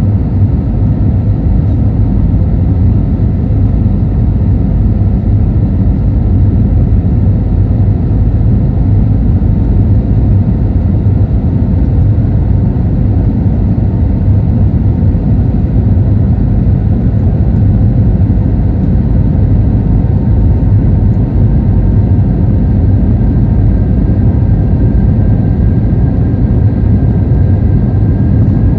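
Airbus A320neo cabin noise in the climb after takeoff, heard from a window seat behind the wing: the engines' steady deep rumble and rush of air, with a faint steady whine above it.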